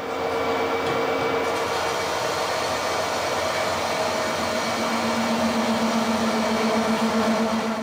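Harrison 140 lathe running at 480 rpm, its tool taking a power-fed cut along a bar turned between centres, feeding towards the tailstock. About halfway in, a steady lower buzzing tone joins the machine noise: the tool chattering in this cut.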